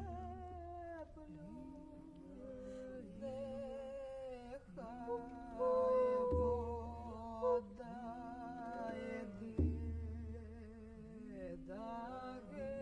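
Wordless layered singing and humming by several voices, wavering and sliding in pitch over a held low drone, in a folk-ethno style. Three deep booms come in near the start, about six seconds in and near ten seconds in.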